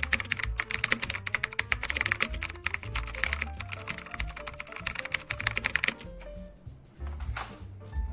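Rapid clicking of plastic keycaps on an Attack Shark K86 mechanical keyboard as the keys are worked, stopping about six seconds in, over background music. A brief rushing noise follows near the end.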